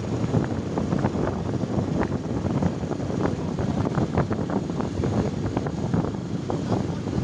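Wind buffeting the microphone over the noise of a motorcycle riding slowly on a dirt road, with many small clicks and rattles scattered throughout.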